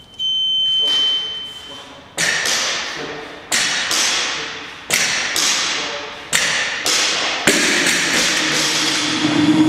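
A gym interval timer's long start beep, then a barbell loaded with bumper plates set down on the rubber floor five times, about once every 1.3 s, during deadlift reps. Each impact rings on briefly.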